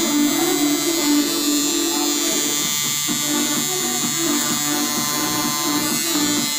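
Tattoo machine buzzing steadily, its hum turning choppy and uneven about halfway through.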